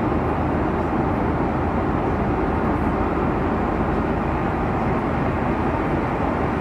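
Steady, even cabin noise of an Airbus A330-300 airliner in flight, a deep rush of air and engine sound heard from inside the passenger cabin.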